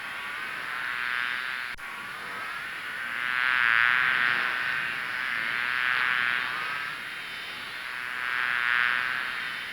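Bees buzzing in a continuous high drone that swells louder and fades again every two seconds or so, as if the bees are passing close by and moving off. The sound drops out for an instant about two seconds in.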